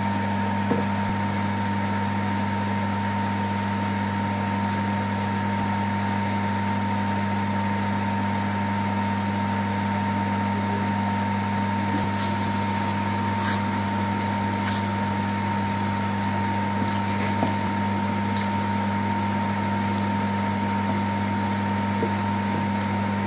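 A steady machine hum with an even hiss, and faint scrapes and taps from a wooden spatula stirring egg curry in a steel pan. The hum cuts off suddenly at the end.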